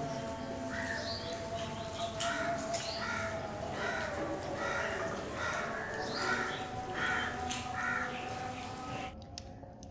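Crows cawing over and over, roughly one or two caws a second, until the sound stops abruptly about nine seconds in.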